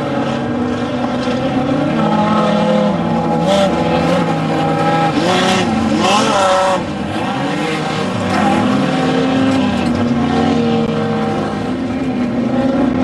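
Off-road desert race vehicle engines revving hard and easing off in turn, with a sharp rev-up about six seconds in.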